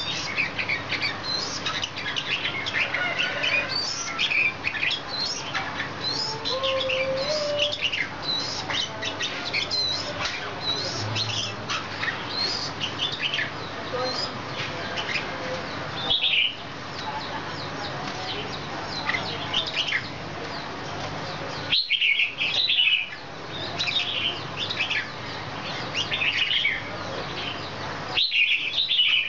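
Red-whiskered bulbul calling: many short, quick falling chirps one after another over a steady background hiss, broken off briefly a few times.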